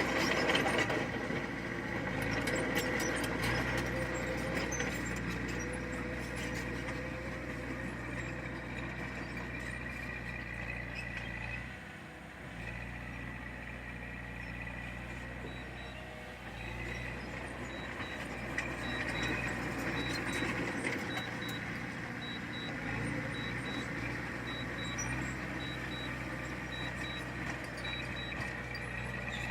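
Heavy diesel earthmoving machinery running steadily, with a brief dip in the engine sound about twelve seconds in. A faint regular beeping joins in about halfway through.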